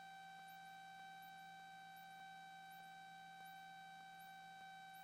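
Near silence: only a faint, steady electrical hum on the audio line.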